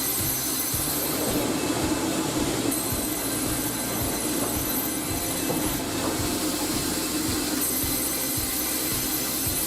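Automated twin band-saw sawmill line running: steady machine noise and rattle, with a high whine that drops out twice and comes back.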